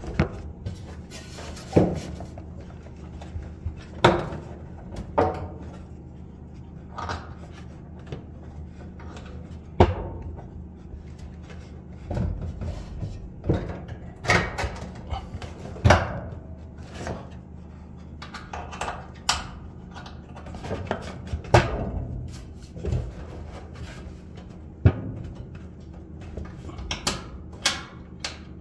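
Irregular knocks, clicks and light clatter of parts and tools being handled during work on a clothes dryer, about one every second or two, over a steady low hum.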